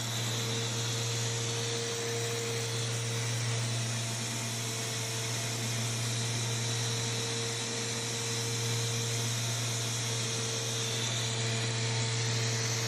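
Plastic extrusion line machinery running steadily: a constant low drone with a fainter steady tone above it and an even mechanical hiss.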